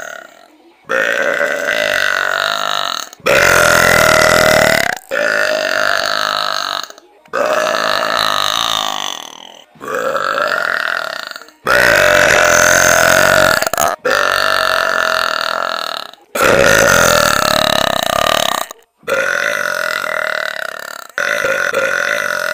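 A person belching about ten times in a row, each belch long and loud, lasting a couple of seconds, with short pauses between.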